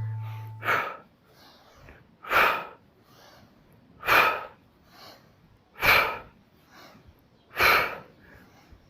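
A person exhaling sharply and audibly in a steady rhythm, about one breath every second and three quarters, during hip hinge reps in a Tabata interval. A bell-like tone rings out in the first second.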